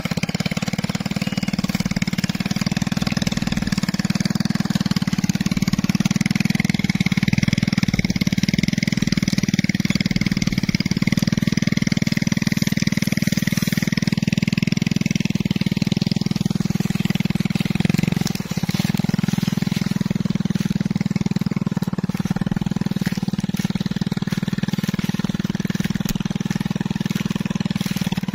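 Small step-through motorcycle engine running steadily under load as it tows a hand-steered plow through the soil, with a brief dip in the engine note about two-thirds of the way through.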